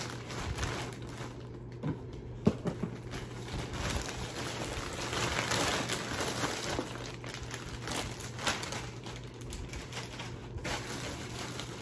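Packaging crinkling and rustling as a parcel is opened and its contents handled, busiest a little after the middle, with a few light knocks about two seconds in.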